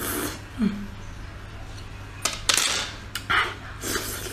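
Close-up eating sounds: slurping and sucking sauce-coated sea snail meat off a bamboo skewer and chewing it, in several short, wet bursts.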